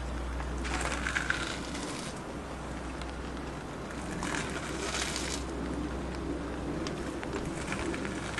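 Foley props being handled and crushed in two noisy bursts of about a second each, one about a second in and one near the middle, with smaller ticks between, over a steady low hum.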